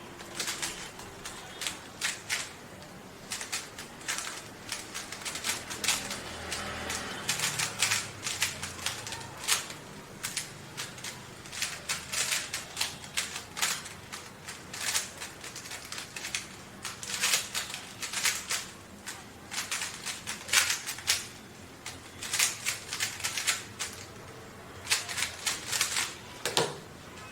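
Rubik's cubes being turned rapidly by hand in a timed speed solve: a dense, irregular stream of plastic clicks and clacks as the layers snap round, with brief pauses between runs of turns.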